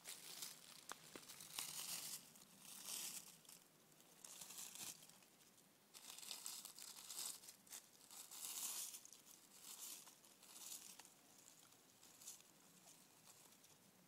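Faint rustling and crackling of dry fallen leaves as hands brush and push through the forest-floor leaf litter, in irregular bursts.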